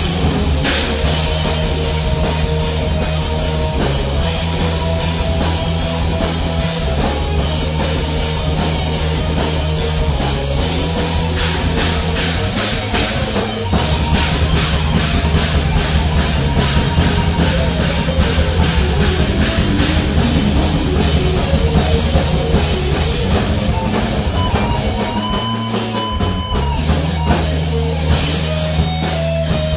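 Improvised rock band jam: guitar and drum kit playing over a two-note riff on E and F, rough but full-sounding.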